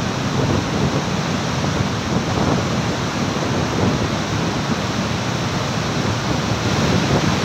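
Steady rushing of muddy floodwater over rocks and flood debris, with wind buffeting the microphone.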